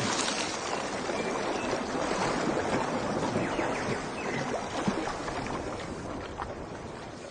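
Running water trickling and splashing, with many small drips and splashes over a steady wash, fading out near the end.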